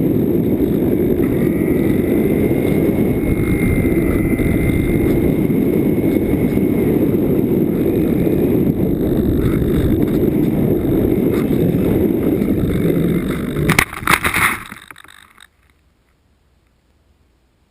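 Heavy wind rush on the onboard camera microphone of a pusher-prop RC plane in flight, with a faint high whine from its electric motor. About fourteen seconds in come a few sharp knocks, and the sound then drops to near silence.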